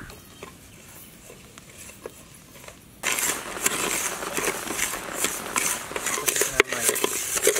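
Roasting rice being stirred in a clay pot with a coconut-shell ladle: a gritty scraping rustle of the grains, with many sharp clicks, starting abruptly about three seconds in after a quieter stretch.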